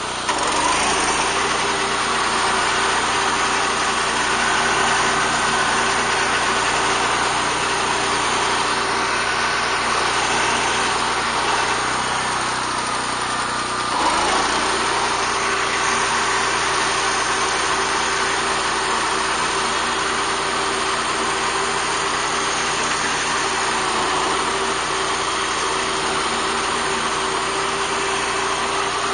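BCS walk-behind tractor engine running steadily under load, driving a 40-inch Zanon finish mower as it cuts grass and brush, with a brief change in the sound about halfway through.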